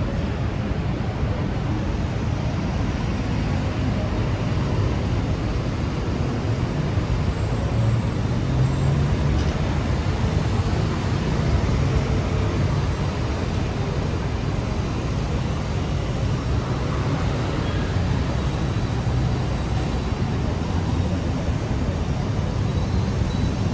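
Steady city traffic noise: a low rumble of many car, bus and motorbike engines and tyres on a busy multi-lane road, with no single vehicle standing out.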